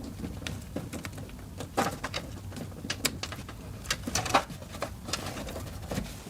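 Scattered clicks and knocks of plastic and metal as a SATA data cable is handled and plugged into a hard drive inside a PC case, with two louder knocks about two seconds and four and a half seconds in.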